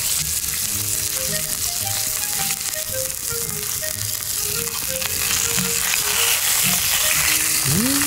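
Pork belly sizzling as it grills over a wood campfire: a steady frying hiss. Faint background music plays under it.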